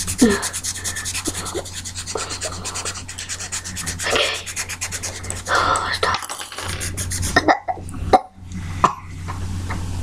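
Felt-tip marker scrubbing on paper in fast back-and-forth strokes as an area is coloured in, with a few sharp knocks near the end.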